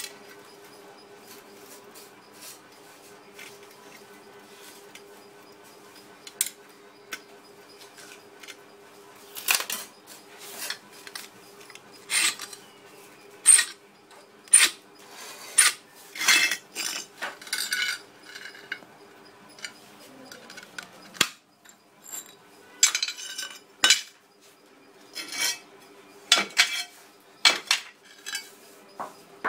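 Glazed ceramic wall tile being scored by hand along a straightedge: a string of short, sharp scratching strokes, about one a second, starting roughly ten seconds in, with a brief lull partway through. A steady low hum runs underneath.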